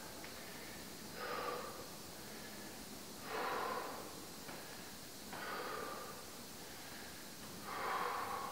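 A person breathing hard with exertion during squatting heel raises: four loud breaths about two seconds apart, over a faint steady hiss.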